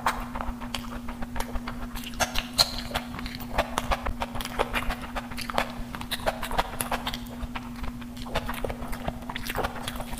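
Close-miked eating sounds: wet chewing and lip smacking on a mouthful of meat curry and biryani rice, a quick irregular run of sticky clicks, with fingers squishing through the rice and curry. A steady low hum sits underneath.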